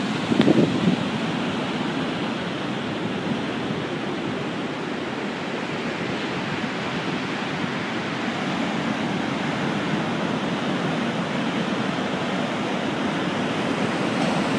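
Storm-driven sea surf breaking continuously on the shore, a steady noisy wash of waves, with a short gust of wind on the microphone about half a second in.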